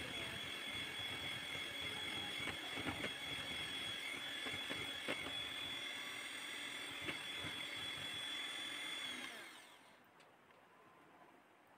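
Electric hand mixer running steadily with a high motor whine as its beaters whisk cake batter in a steel bowl, with a few light knocks. It is switched off about nine seconds in and winds down to silence.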